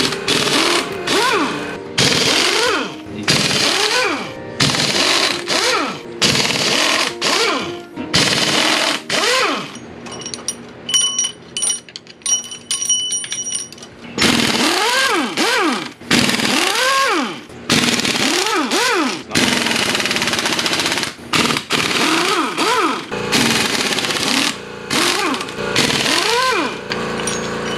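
Pneumatic impact wrench hammering bolts out of a Chevy 305 V8 block in repeated short bursts, each with a whine that rises and falls as the tool spins up and winds down, with a quieter gap about halfway through.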